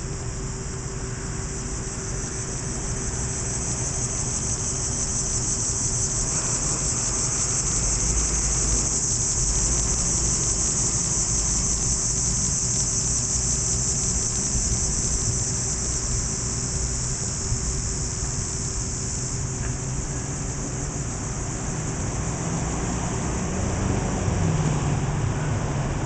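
Cicadas buzzing high and steady in the trees, swelling after several seconds and easing a little about twenty seconds in, over a low steady hum.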